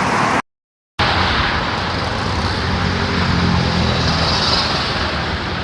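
Road traffic noise with a heavy vehicle's engine running steadily, broken by a half-second dropout to silence about half a second in.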